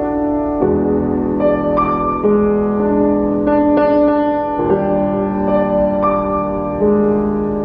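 Yamaha grand piano played solo: slow, ringing chords that change every second or so.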